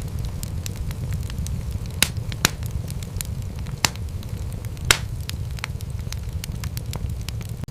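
Wood fire crackling: a steady low rumble of burning logs under a constant scatter of small crackles, with sharper, louder pops about two seconds in, again near two and a half, near four and near five seconds.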